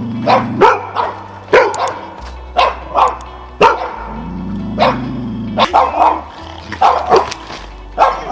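A young Belgian Malinois barking sharply and repeatedly, about a dozen barks at an uneven pace, with background music underneath.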